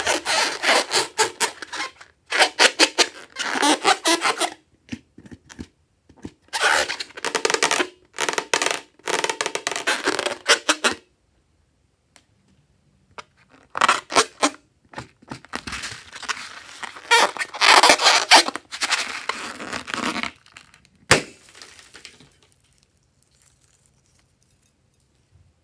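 Slime-filled rubber balloon squeezed and squished by hand, and slime worked over a bowl of glitter and sequins: several bursts of rapid crackly squishing with short pauses between, and a single sharp click near the end.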